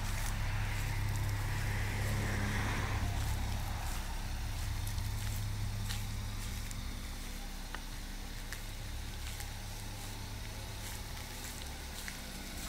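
A steady low hum, fading slightly, with light scattered clicks.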